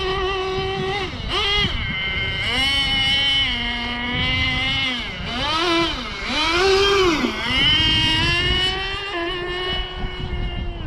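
Kyosho Inferno GT2 1/8-scale nitro RC car's engine running hard, revving up and down over and over as the car accelerates and brakes through its laps, with a high buzzing whine. It is loudest about six to eight seconds in, as the car comes closest.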